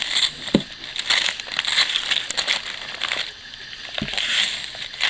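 Paper rustling and crinkling as a freshly sharpened kitchen knife is drawn through a sheet to test its edge, with a couple of short knocks.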